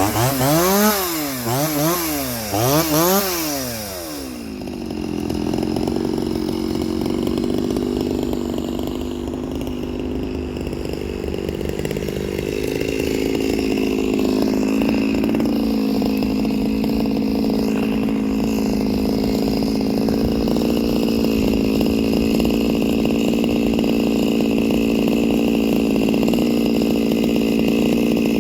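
Two-stroke chainsaw fitted with a big bore kit, revved up and down three times, then held at high revs in a long steady run, as when cutting through wood.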